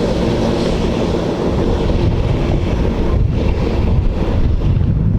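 Jet ski running across the water, with heavy wind buffeting the microphone and water rushing past.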